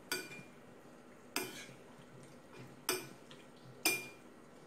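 A metal spoon stirring marinated pork and shrimp in a ceramic bowl, clinking against the bowl four times with a short ring.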